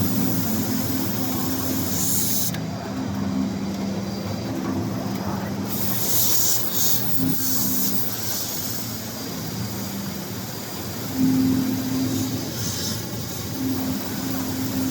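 Automatic cap brim sewing machine running in stretches, its motor hum starting and stopping several times, with three short bursts of hiss about two, six and twelve seconds in.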